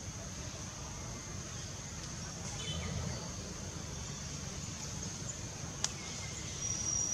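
Outdoor forest ambience: a steady high-pitched insect buzz over a low rumble, with a few faint bird chirps a little before halfway and a single sharp click near the end.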